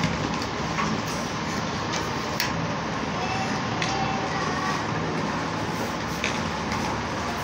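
Steady background hum and hiss with a few scattered light clicks and taps.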